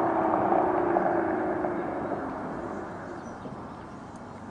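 Aston Martin DBS's 6.0-litre V12 engine note fading away as the car drives off after a high-speed fly-by, its pitch falling slightly, until only a faint rush remains.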